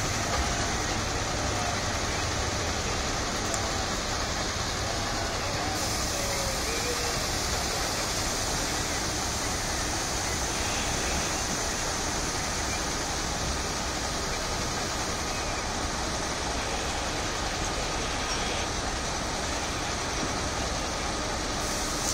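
Crane barge's engine running steadily while the concrete block hangs on the hook, a continuous rumble and hiss with no clear rise or fall.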